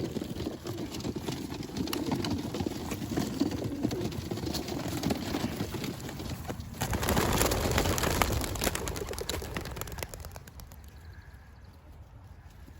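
A flock of young homing pigeons taking off from a transport basket, wings flapping and clattering. The flapping swells to its loudest past the middle, then fades about ten seconds in as the flock moves off.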